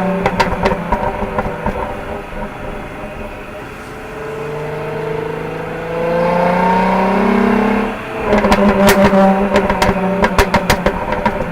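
Jaguar XE 35t's supercharged 3.0-litre V6 and exhaust, with sharp crackles and pops over the engine note at first. From about four seconds in the engine pulls with a steadily rising note, cuts off abruptly about eight seconds in, then runs loud again with more crackles and pops.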